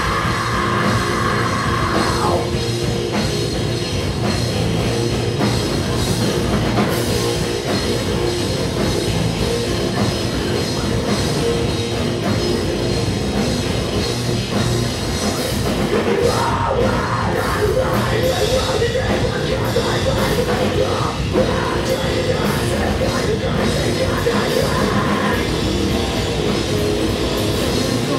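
Post-hardcore band playing a song live: guitars, bass, keyboard and drum kit, with the singer's vocal over the top in places.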